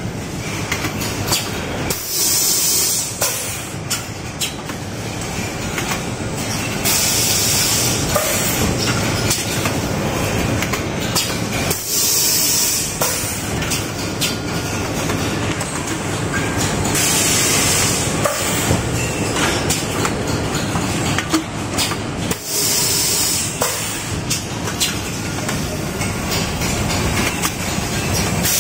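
Automatic laser welding machine for double-wall stainless steel thermos flask mouths running in production: steady mechanical clatter and clicking, with a loud burst of hiss about every five seconds, each lasting a little over a second.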